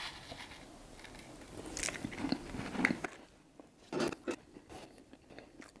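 A mouthful of sunflower seeds being chewed close to the microphone: scattered small crunches, with a couple of louder crunches about four seconds in.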